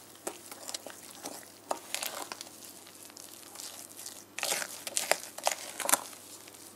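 Wooden spoon stirring thick cake batter in a glass mixing bowl: scraping with irregular light knocks of the spoon against the bowl, busiest from about four and a half to six seconds in.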